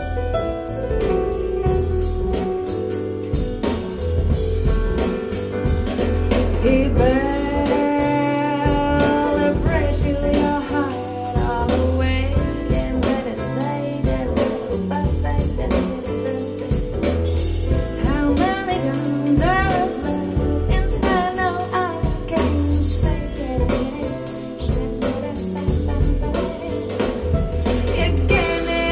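A woman singing a slow, jazzy live song over band accompaniment with a deep bass line, played back through Musician Knight 1 loudspeakers driven by an SMSL AO300 Class D integrated amplifier.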